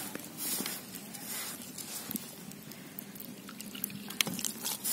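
A hand squeezing and working damp, crumbly flour in a steel bowl, with wet squishing. Near the end water is poured in from a bottle, and a sharp tap sounds about four seconds in.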